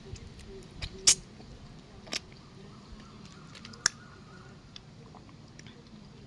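Sharp clicks and cracks of raw mantis shrimp shell being handled and bitten into while eating, three louder snaps among fainter ticks.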